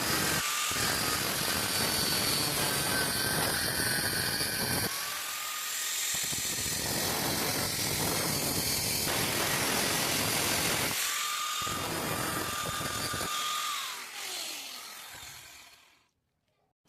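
Electric grinder running with a steady high whine while a drill bit is ground against it; the grinding noise comes and goes in several passes. Near the end the motor is switched off and its whine falls as it winds down.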